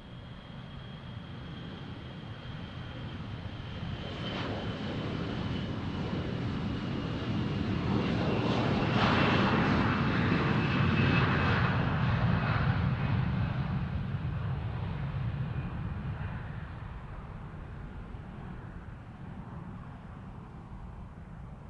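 Jet airliner passing by: the engine noise swells to a peak about ten seconds in and then fades away. A high engine whine falls slowly in pitch as the aircraft goes past.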